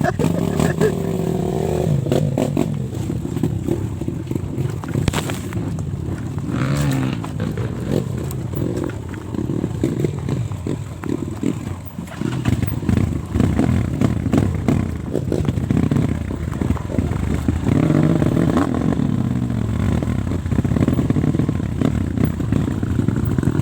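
Dirt bike engines running and revving, their pitch rising and falling several times.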